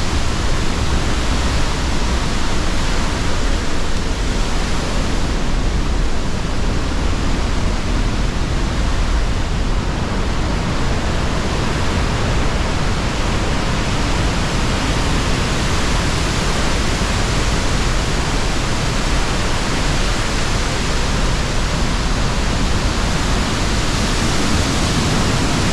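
Pailón del Diablo waterfall, a large waterfall heard at close range: a loud, steady rush of falling water with no break.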